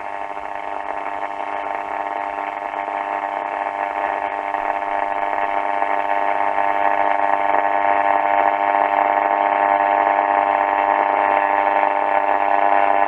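A Bush AC31 valve radio's loudspeaker on the medium wave band, giving out a steady buzzing, whistling interference of many tones at once rather than a station. It swells gradually louder over the first half, then holds.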